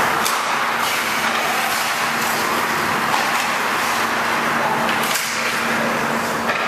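Indoor ice rink during hockey practice: a steady noisy wash with a constant low hum, and a few sharp clicks scattered through it.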